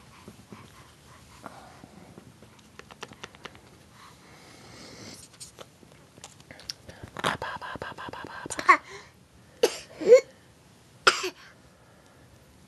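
Baby's voice: a strained, pitched vocal sound for over a second past the middle, then three short sharp cough-like squeals. Soft clicks of the baby mouthing and chewing a cloth toy come before.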